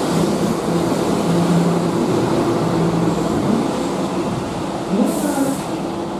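Keihan electric commuter train moving along the station platform, a steady rumble of wheels on rail with a low motor hum. About five seconds in comes a short hiss of air.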